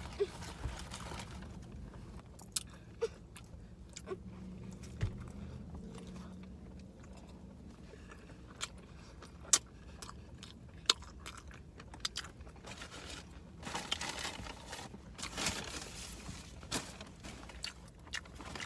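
A person chewing and crunching a fried onion ring, with sharp crunches scattered throughout and a busier run of crunching near the end.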